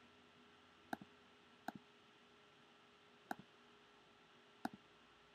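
Four computer mouse clicks spaced over a few seconds, each a sharp click followed right away by a softer one, over a faint steady room hum.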